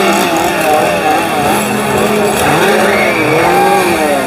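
A loud motor sound revving up and down over and over, several overlapping rising-and-falling whines, over a steady low hum.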